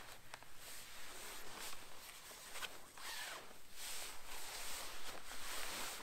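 Tarp fabric rustling as a person climbs into a tarp slung as a hammock and pulls its edge over himself. There are a couple of short ticks early on, and the rustling grows denser and louder from about halfway through.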